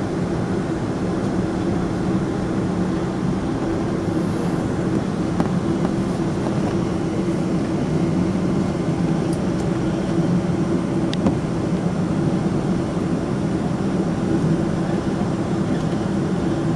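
Boeing 777-200ER's jet engines running at low taxi power, heard inside the cabin over the wing: a steady hum with a low drone over an even rushing noise.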